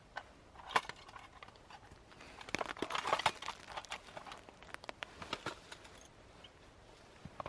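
Irregular light clicks, taps and rustles from a small box being handled on the lap, busiest about halfway through, over a faint steady background hiss.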